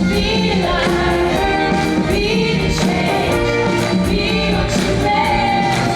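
Gospel-style song: choir singing over a band with a steady beat.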